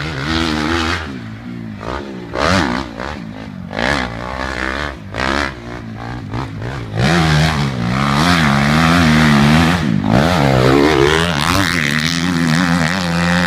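Motocross dirt bike engine revving on the track: short throttle blips with gaps at first, then from about seven seconds in it runs louder and continuously, its pitch rising and falling as the rider works the throttle, with a sharp rev-up a few seconds before the end.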